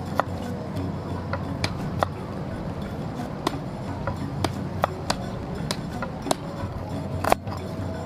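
Knife cutting garlic, shallots and turmeric on a wooden board: sharp, irregular clicks about once or twice a second, over quiet background music.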